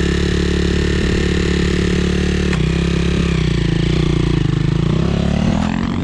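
2004 Honda CRF250R's single-cylinder four-stroke engine running loudly at a steady speed, its note dipping and then rising near the end.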